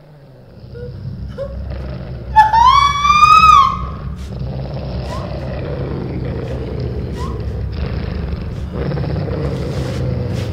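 Horror sound design: a low rumbling drone, with one loud high-pitched cry about two and a half seconds in that rises, holds and falls away over a little more than a second.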